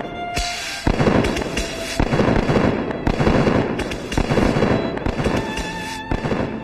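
Fireworks crackling and popping in quick, dense succession over background music, thinning out near the end.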